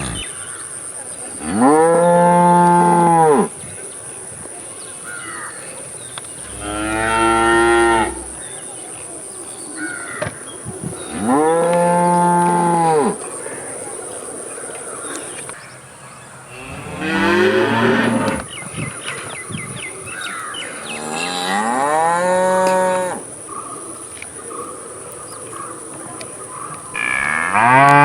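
Cattle mooing: about six long, loud moos a few seconds apart. A steady high-pitched drone runs behind them.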